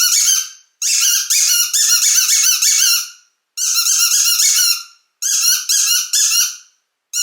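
Puppy whimpering: high-pitched, quavering squeals in four bursts of one to two seconds each, with short silences between.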